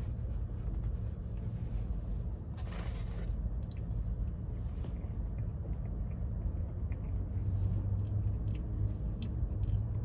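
Close-up food handling and eating noises: a short rustle, then small clicks and chewing sounds, over a steady low hum.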